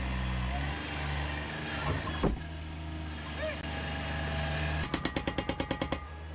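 Engine idling steadily, with a rapid rattle of about ten clicks a second for about a second near the end.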